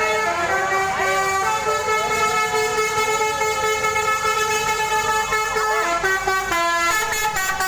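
Bus's Basuri multi-tone 'telolet' horn sounding without a break, playing a melody of held notes that jump from pitch to pitch, with quicker note changes near the end.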